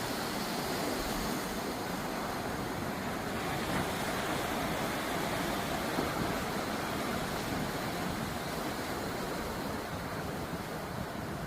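Sea surf washing onto a beach: a continuous, steady rush of breaking waves, a little quieter near the end.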